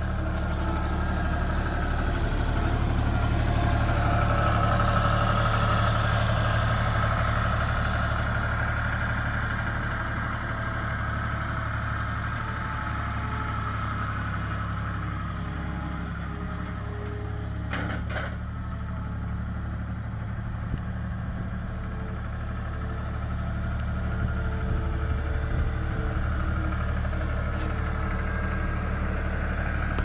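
John Deere 240 Series II skid steer loader's diesel engine running steadily as the machine drives about, louder from about three to eight seconds in as it passes closest. There is a brief knock about eighteen seconds in.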